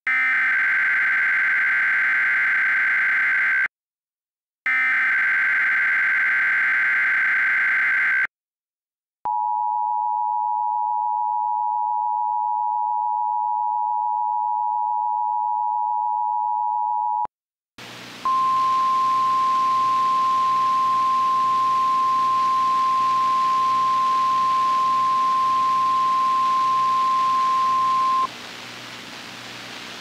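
Emergency Alert System SAME header data bursts, two of them of about four seconds each, a harsh buzzing digital screech. After a short gap comes the two-tone EAS attention signal, held steady for about eight seconds. Then hissy NOAA Weather Radio audio carries a single steady warning alarm tone for about ten seconds, and the tone cuts off near the end, leaving static.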